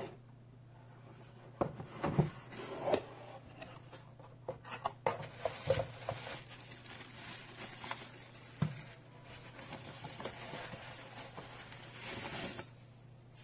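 Cardboard box being opened and handled, with a series of knocks and scrapes in the first half. In the second half comes a steady rustling as the thin white wrapping sheet is pulled off the packed holder.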